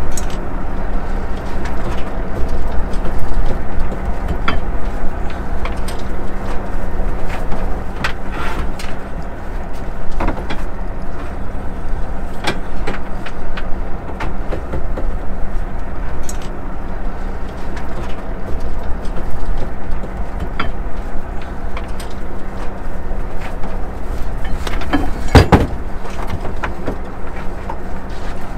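Fishing boat's engine running steadily with a low rumble and a constant hum, with occasional short knocks and clatters, the loudest about 25 seconds in.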